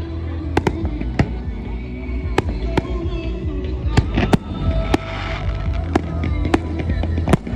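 Fireworks display: a dozen or so sharp bangs at irregular intervals over a steady low rumble.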